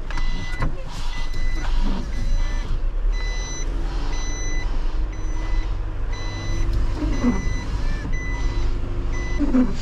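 Refuse truck's reversing alarm beeping evenly, about three beeps every two seconds, over the steady hum of the truck's diesel engine, heard from inside the cab.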